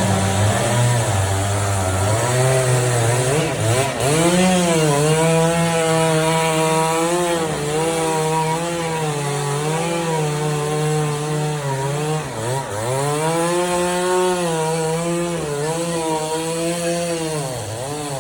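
Chainsaw cutting through wood, its engine pitch sagging and recovering as the chain loads up in the cut. Twice it drops off briefly and revs back up, and it eases off near the end.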